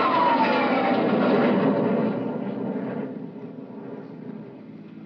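Jet aircraft flying past, a loud rushing roar with a whine that falls in pitch, fading away over a few seconds. This is a radio drama sound effect heard off an old transcription disc.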